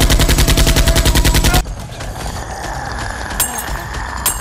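A burst of rapid automatic gunfire, about a dozen shots a second, cutting off sharply about a second and a half in. Two sharp clicks follow near the end.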